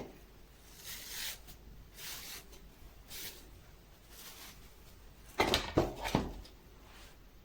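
Hands handling a wig and hair: soft rustling swishes about once a second, then a short burst of knocks and rubs about five and a half seconds in.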